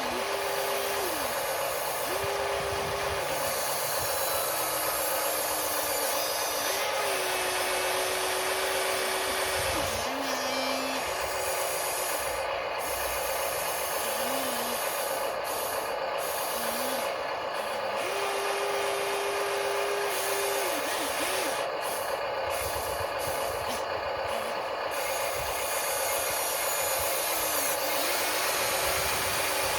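Small electric gear motors of an RC excavator and loader whining. The pitch rises, holds steady for a second or two and drops again as the functions start and stop, over a constant electric hum and hiss.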